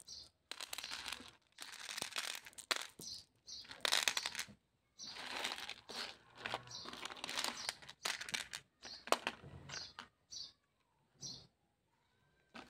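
Irregular bursts of crinkly rustling, with a few light clicks, as small candies are handled and set down on a plate; the rustling thins out near the end.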